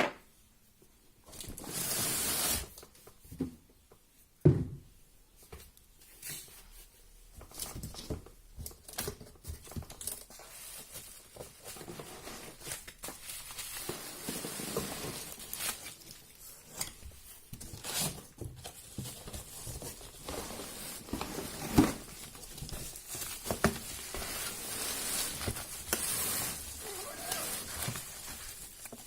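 Unboxing handling noise: packaging torn and rustled, with the contents knocked and shifted. There is a burst of tearing about two seconds in, a sharp thud a couple of seconds later, and then steady rustling with scattered knocks.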